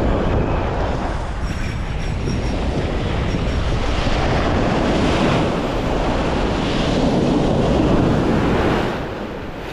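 Ocean surf breaking and washing up the beach close by, with wind buffeting the microphone. The sound swells as waves come in, loudest as a wave crashes near the end.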